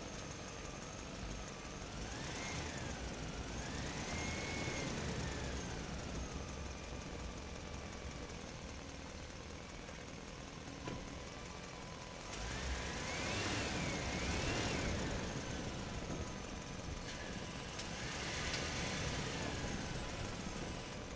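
Engine-like running sound over a steady low rumble, with a whine that rises and falls in pitch in three louder stretches.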